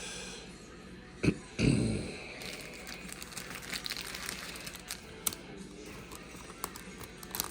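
Trading cards and pack wrappers being handled: crinkling and rustling with many light clicks, and a single low knock about a second and a half in.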